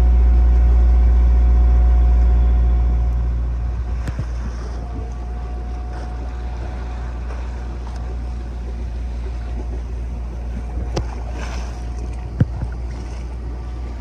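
A sailboat's inboard diesel engine running under way, a steady low hum that drops in level about three seconds in, with a couple of short knocks near the end.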